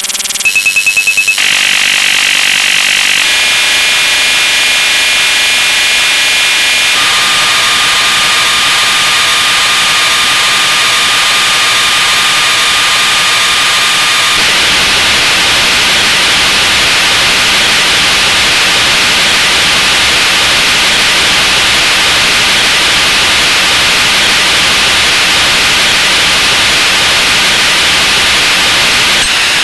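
Sound effects layered and sped up into a harsh, loud electronic jumble. It opens with a rapid string of beeps, then moves to stacked steady tones that change every few seconds, with one held tone from about 7 to 14 seconds in. After that it turns into a dense, even hiss-like noise.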